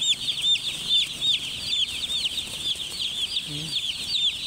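A large flock of chicks peeping nonstop: a dense chorus of short, high chirps overlapping several times a second.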